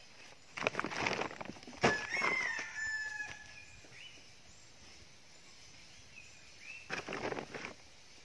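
A rooster crows once, about two seconds in. Around it comes rustling from hands working in a plastic sack and a pile of fruit, with a second short burst of rustling near the end.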